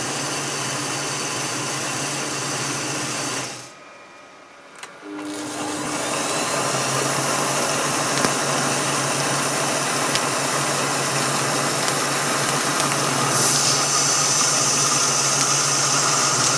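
A 1950s Mars lathe running under its braked DC motor, with a steady hum and whine from the motor and gearing. About three and a half seconds in it stops quickly on its brake. A click follows about a second later, then the lathe starts again, winds up over about a second and runs steadily.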